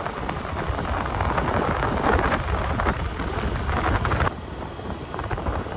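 A vehicle on the move, with wind buffeting the microphone in gusts; the noise drops abruptly a little over four seconds in.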